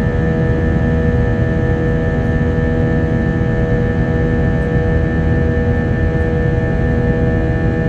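Airbus A321 engine and airflow noise inside the cabin during the climb after takeoff: a steady, loud drone with several constant tones running through it.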